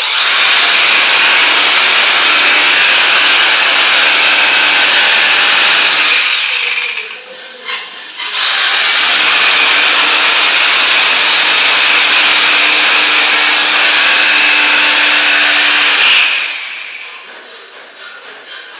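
A power tool running loud and steady in two long runs of about six and eight seconds, with a short break holding a few knocks between them; each run dies away as the tool is switched off.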